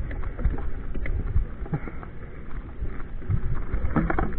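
Irregular scuffs and knocks of shoes slipping and stepping on a wet, slippery dirt trail, over a low rumble.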